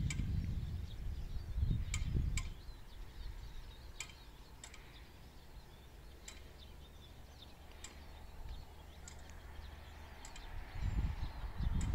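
Open-air rural ambience: an irregular low rumble, like wind on the microphone, fades out about two seconds in and builds up again near the end. Short high bird chirps come every second or so throughout.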